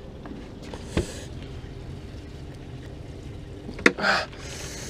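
A small crab being handled and dropped into a plastic bucket: a sharp click about a second in, then a knock near the end as it lands, followed by a brief rustle, over steady low outdoor background noise.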